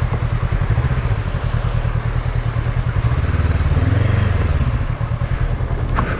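Motorcycle engine running at low speed with a regular low pulse, swelling briefly as the throttle is opened a few seconds in and then easing off. There is a sharp knock near the end.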